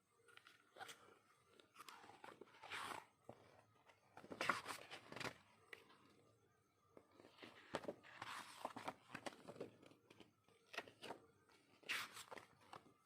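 Packaging and merchandise being handled: faint rustling swishes in a few short spells, with scattered light clicks and taps.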